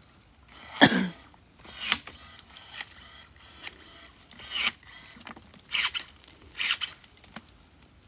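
A hand tool cutting and scraping at the roots and soil around a sparrow plum stump being dug up: about six short, uneven strokes, the first the loudest.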